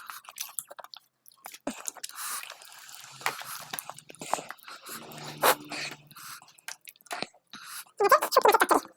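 Close-miked eating: chewing, biting and mouth noises with scattered sharp crunches and clicks. About eight seconds in there is a louder burst of sound lasting under a second.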